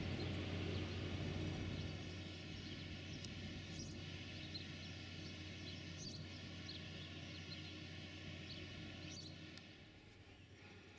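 Steady low drone of distant tractor engines, with a few short bird chirps over it; the drone drops away near the end.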